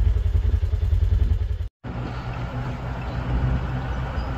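Steady low rumble of wind on the microphone outdoors, cut off abruptly about two seconds in, then a pickup truck's engine and road noise heard from inside the cab as it drives along.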